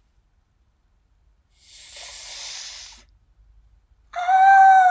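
A breathy hiss lasting about a second and a half, then, about four seconds in, a loud, high-pitched cartoon girl's voice letting out one long wail whose pitch slowly falls.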